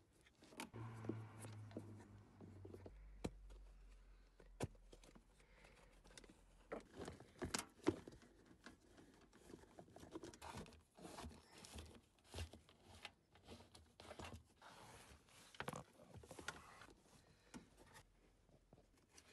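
Faint handling sounds: rustling, scraping and small clicks as hands work a thin plastic fuel line and a rubber floor mat, with one sharper click about eight seconds in.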